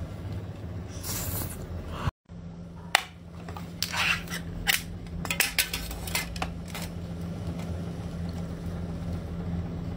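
Metal ring-pull lid of a clear can of octopus in chili oil being popped open with a sharp click, then peeled back with a run of scraping, crackling clicks as it tears away from the rim. Before that, a short bout of eating sounds.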